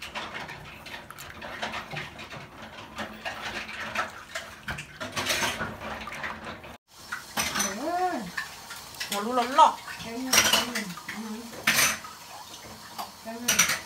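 Wooden spatula stirring and scraping a thick mixture in a stainless steel pot. After a cut, the spatula scrapes the pot out, with a few sharp clanks of wood on metal.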